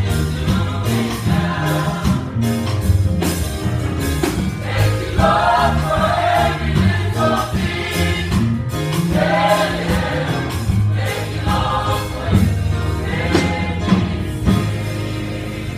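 Church youth choir singing a gospel song together, over an instrumental backing with a moving bass line.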